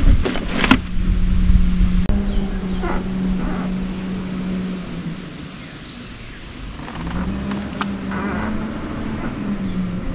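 Electric trolling motor running with a steady hum, cutting out for about two seconds midway and then running again. A few knocks in the first second.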